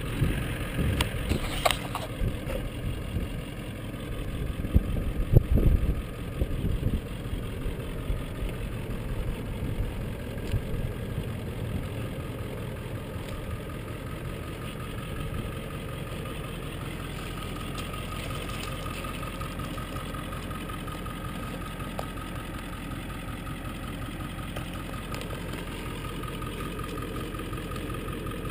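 Ford F-350 pickup's engine idling steadily. A few knocks and scuffs stand out over it in the first six seconds.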